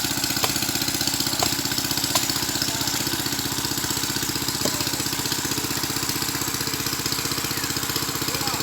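A small engine running steadily with an even, rapid beat, and a few faint clicks in the first couple of seconds.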